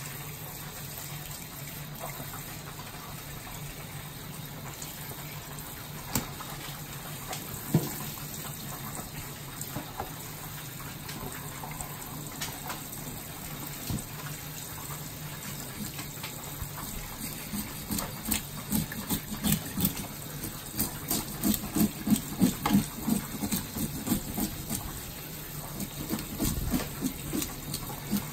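Kitchen faucet running a steady stream of water over black bass in a stainless steel sink. From about two-thirds of the way through, gloved hands rub and scrape the fish in quick, repeated strokes that grow louder.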